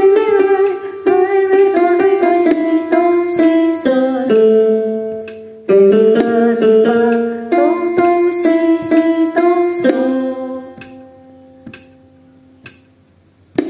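A woman singing a slow melody over plucked guitar accompaniment. The phrase ends on a held note that fades out about ten seconds in, leaving it nearly quiet until the music starts again at the very end.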